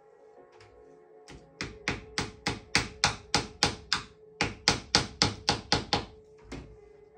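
A mallet striking a wooden wedge held in the seat groove, driving pressed-cane webbing into the groove of a chair seat. Two quick runs of sharp taps, about three to four a second, with a short pause midway and a last lighter tap near the end.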